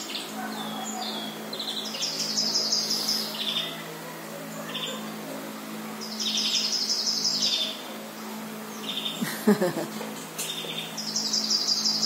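Small songbirds singing through a television's speaker: a high, rapid trill of about a second, repeated every four seconds or so, with short chirps between, over a steady low hum. A brief louder sound comes about nine and a half seconds in.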